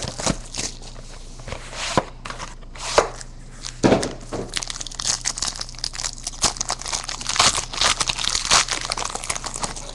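Plastic wrapping on a trading-card pack being torn open and crinkled by hand: irregular crackling and tearing. It gets denser in the second half, with a couple of sharper snaps about three and four seconds in.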